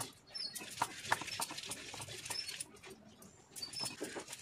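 A round hand-held grinding stone knocking and pressing onion pieces against a flat stone slab, giving irregular knocks a few times a second, with a short quieter pause about two-thirds of the way through.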